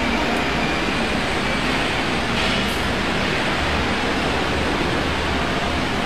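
Apple processing machine running: a steady mechanical noise, with a low hum growing stronger about halfway through.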